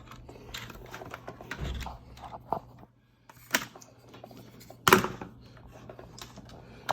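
Scattered small clicks, taps and rustles of cables and plastic plugs being handled, with one louder knock about five seconds in.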